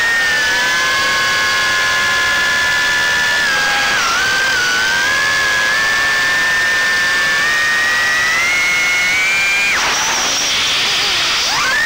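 Brushless motors and propellers of a Diatone R249 FPV racing quadcopter, recorded on board: a high whine of several tones that rises and falls with the throttle and slowly climbs. About ten seconds in it drops away suddenly to a rushing hiss, then sweeps back up just before the end.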